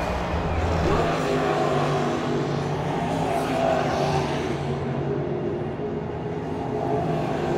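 V8 engines of NASCAR stock cars running at a fairly steady pitch.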